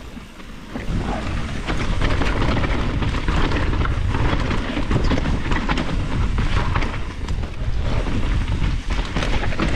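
Mountain bike riding fast down a singletrack trail: a heavy rumble of wind and tyres on the microphone, with many short rattling clicks from the bike over the ground. It picks up about a second in and stays steady.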